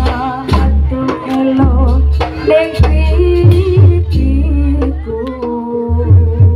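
Loud music: a singer's melody over a strong, heavy drum beat.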